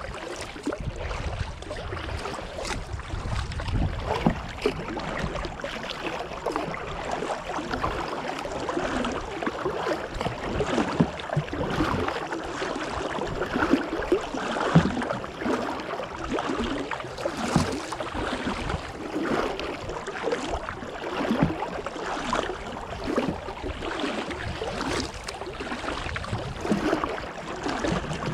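Kayak paddling: the paddle blades dip and splash at irregular intervals every second or two, with water dripping and gurgling off the blades and a steady wash of water along the hull.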